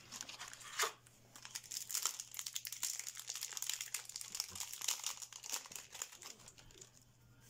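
Foil wrapper of a Yu-Gi-Oh booster pack being torn open and crinkled by hand: a dense, crackling run that starts about a second in after a sharp click and eases off near the end.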